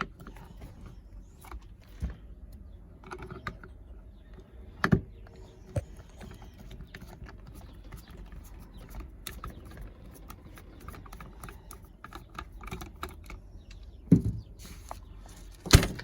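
Screws being backed out of an impact wrench's housing with a hand screwdriver: faint scattered clicks and scrapes, with a few louder knocks about five seconds in and near the end.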